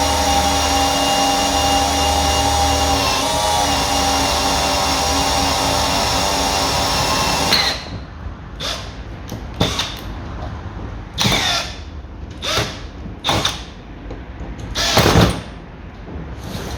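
Cordless drill drilling out the rivets that hold a car's window regulator in the door. The drill runs steadily with a steady whine for about the first seven and a half seconds, then is run in a series of short bursts.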